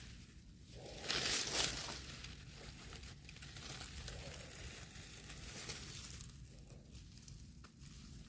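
Crinkling, rustling handling noise with small crackles while mushrooms are being picked. It is loudest about a second in, then quieter and irregular.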